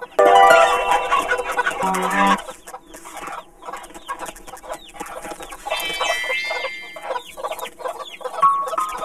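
A flock of cartoon hens clucking and squawking, loudest in a burst during the first couple of seconds, with further squawks about six seconds in and near the end.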